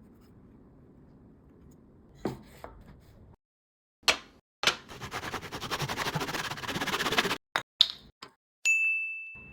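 Hand saw cutting wood for about three seconds, with a rapid rasping stroke pattern. Then come two sharp knocks and a bright metallic ding that rings and fades.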